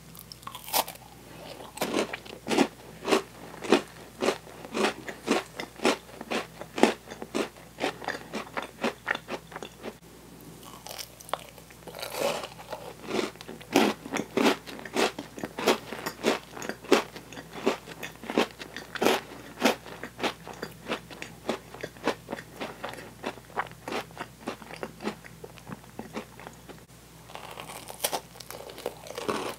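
Close-miked chewing of chocolate-coated Oreo cookies: a run of crisp crunches, a few a second, broken by a couple of brief pauses.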